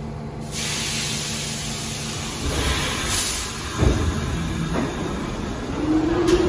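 R46 subway train pulling out of the station. A hiss of air starts about half a second in, two clunks follow from the wheels, and the motors begin a whine that rises in pitch near the end.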